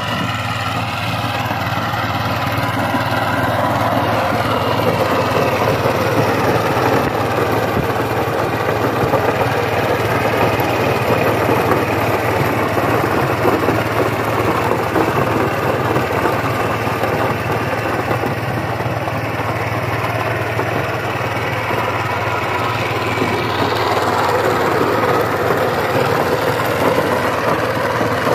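Power tiller's single-cylinder diesel engine running steadily under load as it drives the rotary tiller through dry soil.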